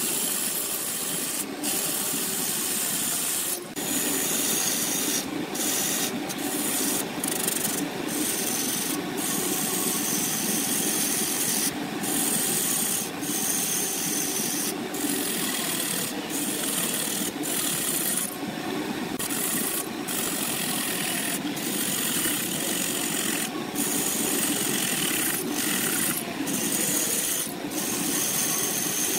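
Segmented wood blank spinning on a wood lathe while a tool shapes it: a steady noisy scraping of the tool on the wood, broken now and then by brief dips.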